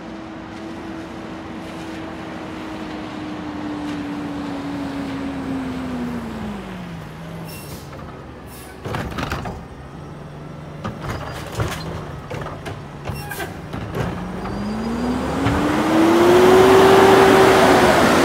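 Mack LR garbage truck's natural-gas engine winding down to idle as it stops. About nine seconds in comes a short hiss of air, then a few clanks as the Curotto Can arm grabs and empties a cart. The engine revs back up and is loudest near the end as the truck pulls away.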